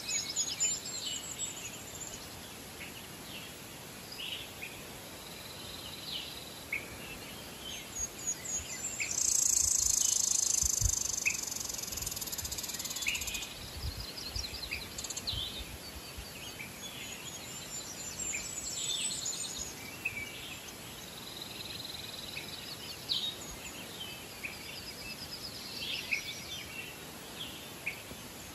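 Several songbirds singing and chirping, with a loud high trill running for about four seconds near the middle. A few low thumps come during that trill.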